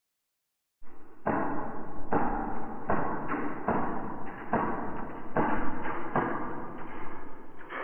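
Music with a heavy, steady beat, about one beat every 0.8 seconds, starting about a second in after dead silence.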